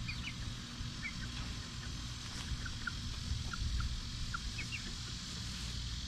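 Young chickens peeping as they forage: short, high, falling chirps, a few each second, over a steady low rumble.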